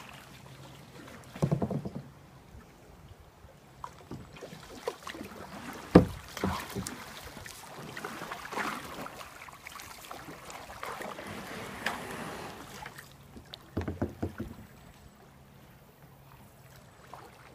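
Kayak paddling: paddle strokes splashing and dripping in the water, with scattered knocks, the sharpest about six seconds in.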